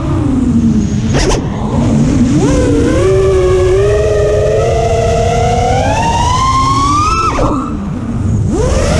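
FPV drone's brushless motors and propellers whining, with wind rushing over the onboard GoPro's microphone. The pitch drops as the throttle comes off at the start and spikes briefly about a second in. It then climbs steadily for several seconds, falls sharply about seven seconds in, and rises again near the end.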